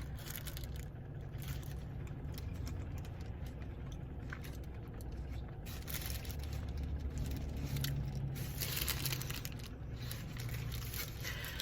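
A person biting and chewing a pancake, egg and sausage breakfast sandwich close to the microphone: soft, wet mouth noises and small clicks.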